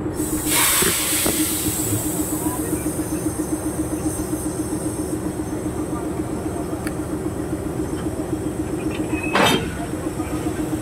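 CC 206 diesel-electric locomotive engine idling with a steady, fast-pulsing drone as the rescue locomotive is brought up to couple to the stalled one. About half a second in, air hisses for over a second. Near the end comes a single sharp metallic clank as the couplers meet.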